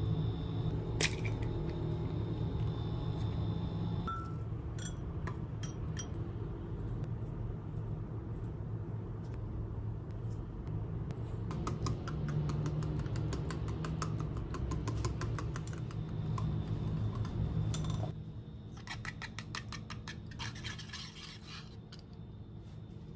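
Eggs being cracked and separated, then a small wire whisk beating eggs, clicking rapidly against the side of a glass bowl. Near the end it whisks in a second bowl. A steady low hum runs underneath.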